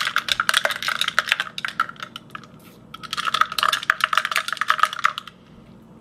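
A straw clinking rapidly against the inside of a glass mason-jar mug as a latte is stirred, in two spells with a short pause about two seconds in, stopping about five seconds in.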